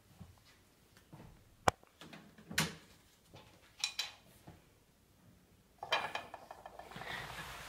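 A kitten batting a wooden stick about on a wooden floor: a few separate sharp knocks and clacks, the sharpest about a second and a half in.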